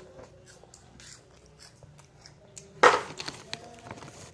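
Faint clicks and crunches of someone eating crunchy corn snack puffs, with one sudden sharp, loud knock about three seconds in, followed by a few lighter clicks.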